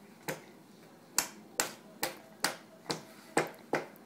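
A baby slapping a plastic high-chair tray with his hand: about eight sharp smacks, roughly two a second at an uneven pace.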